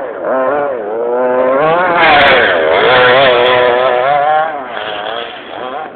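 Small two-stroke petrol engine of an FG radio-controlled monster truck revving up and down as it is driven, its pitch rising and falling repeatedly; it is loudest through the middle and eases off near the end.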